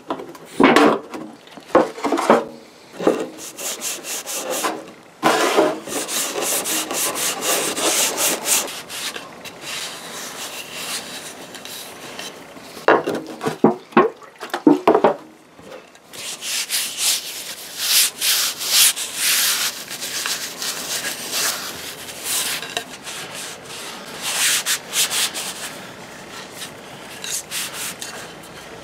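A cloth rag wet with acetone rubbed briskly back and forth along a hickory axe handle, stripping off its factory finish, in runs of quick, rough strokes. A few knocks and handling bumps come near the start and about halfway through.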